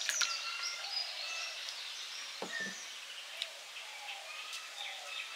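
Birds chirping and calling, many short high notes scattered throughout, over steady outdoor background noise. A few soft clicks come right at the start, and a brief low sound about two and a half seconds in.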